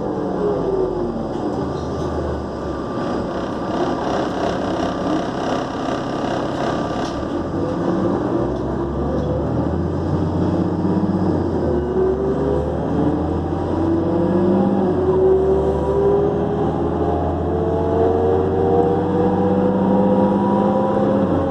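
New Flyer D40LF diesel transit bus heard from on board, its engine and turbocharger running under way. The pitch falls at first, then the whine climbs steadily through the second half as the bus accelerates.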